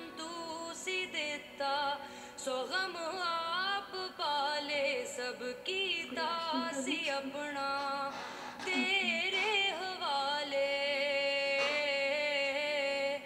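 A woman singing a Punjabi song solo in a deep voice, with wavering, ornamented melodic runs held over long phrases.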